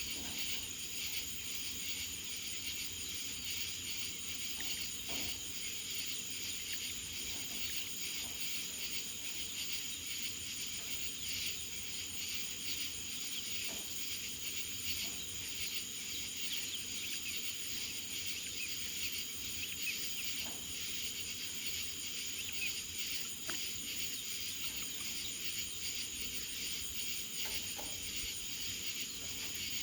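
Steady chorus of insects chirping, with a fast, even high pulsing throughout.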